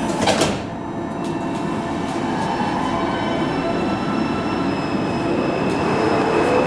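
Alstom Metropolis metro train doors shutting with a knock at the start, then the train pulling away: a steady rumble with thin electric drive tones. A whine begins to rise near the end as the train speeds up.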